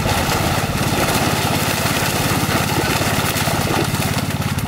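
Small engine running steadily, with water splashing and churning loudly over it.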